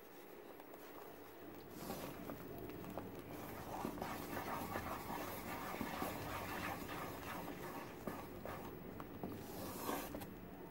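Spatula stirring thick khopra mithai paste (coconut, semolina, milk powder, sugar and ghee) in a non-stick pan, with wet squelching strokes and a fine crackle from the paste cooking in ghee. The strokes grow busier about four seconds in.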